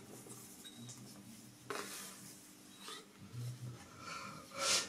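Metal handling noises as an old metal camera head is set onto a stand's column and screwed down: a click a little over a third of the way in, a fainter one after it, and a louder scrape near the end.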